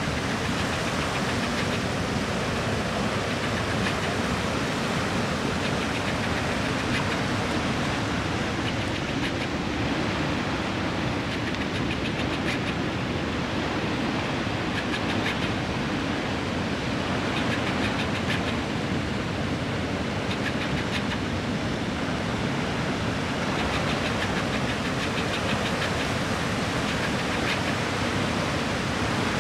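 Turbulent outflow water from a hydroelectric power plant churning in swirling vortexes, a steady deep rush with no break.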